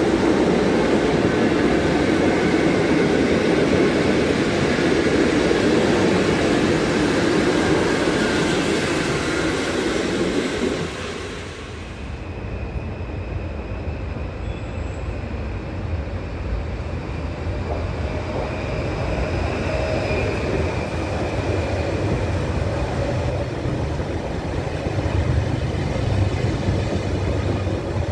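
Passenger coaches rolling past on the rails with a loud, steady rumble of wheels. About eleven seconds in, this cuts to a quieter scene: a PKP Intercity ED160 (Stadler FLIRT) electric multiple unit rolls into the platform, its low rumble building as it comes close near the end.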